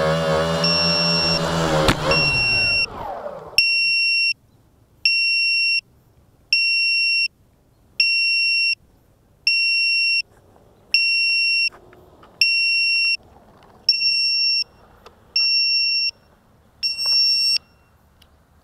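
Tricopter's brushless motors whining, then winding down and stopping within the first three seconds as it settles on the ground. An onboard electronic buzzer sounds long high beeps throughout, about one every second and a half, alone once the motors have stopped.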